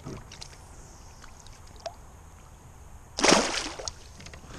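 A bass being released by hand over the side of a boat, with one short, loud splash about three seconds in as it kicks free at the surface. Before the splash there are a few small clicks and a light slosh of water.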